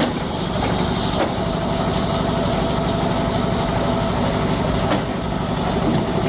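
Tractor engine running steadily, driving a PTO woodcutter, with a few faint knocks.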